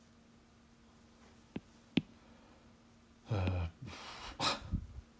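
Two short sharp clicks, then a person's breathy sigh lasting about a second and a half, over a faint steady electrical hum.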